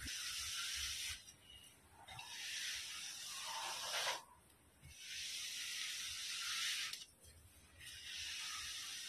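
Glue brush and gloved hand rubbing over freshly glued wall covering in long smoothing strokes, pressing it flat against the wall. It is heard as four separate strokes of a soft hiss, each about two seconds long, with short pauses between.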